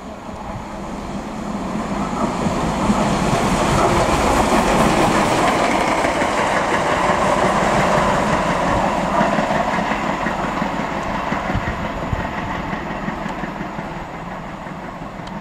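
A steam locomotive running light with its tender passes close by, its sound swelling over the first few seconds, then fading steadily as it runs away down the line.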